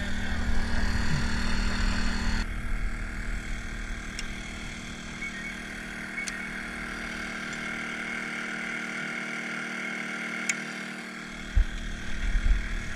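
A small engine runs steadily on the boat, a hum with several held tones that changes in tone about two seconds in. A few faint ticks, then a couple of low thumps near the end.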